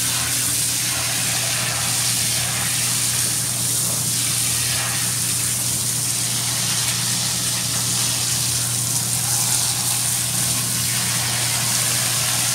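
Superior Pump 91014 1/4 HP thermoplastic utility pump sitting in the tub, running with a steady electric hum as its bathing hose nozzle sprays soapy water over a dog's coat and into the shallow bath water.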